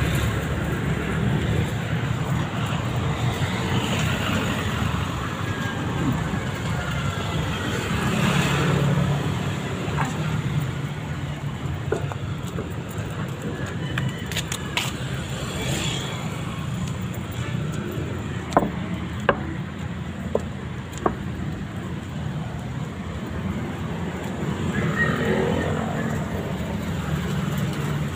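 Steady motor-vehicle engine and road traffic noise, with a few short sharp clicks about two-thirds of the way through.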